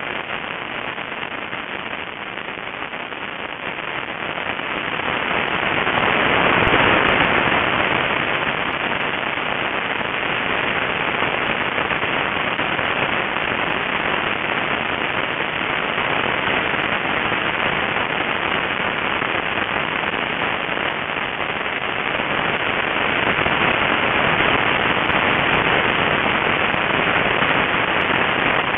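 Rushing, crackling wind noise from air streaming over a small onboard camera on a flying RC model airplane, swelling louder about six to seven seconds in and again near the end.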